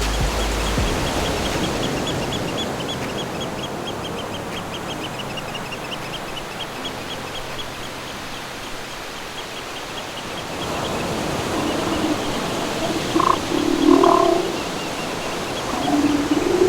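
Nature soundscape of steady rushing waves, with a rapid series of short high chirps, about four or five a second, through the first half, and a few short, louder animal calls in the second half.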